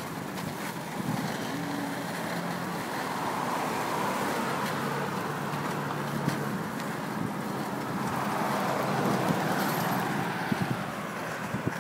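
Steady vehicle noise that swells and fades twice, as vehicles pass, with a few light clicks near the end.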